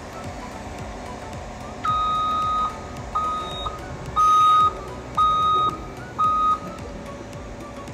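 Cat 320 excavator running as it swings, with its warning alarm beeping five times at one steady high pitch. The beeps start about two seconds in; the first is longer and the rest follow about once a second.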